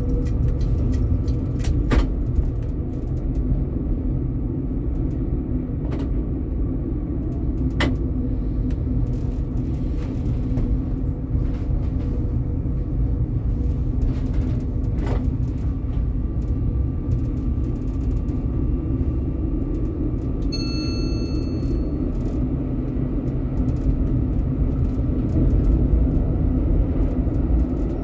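Helsinki tram running along its line, a steady low rumble of wheels on rail and drive with occasional sharp clicks. A short high beep sounds about two-thirds of the way through.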